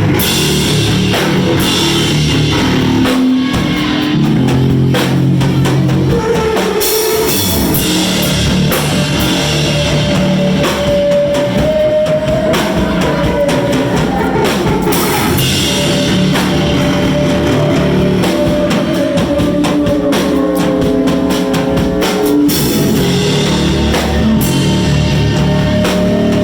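Live rock band playing at a steady loud level: drum kit with frequent cymbal hits under sustained guitar chords and held notes.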